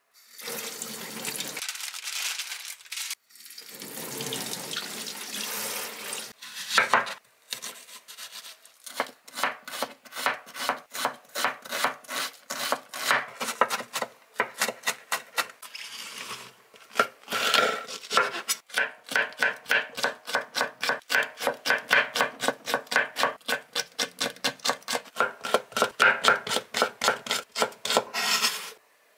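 Kitchen tap water running as a young squash is rinsed under it, then a chef's knife chopping on a wooden cutting board in quick, even strokes, dicing onion and then green chilli.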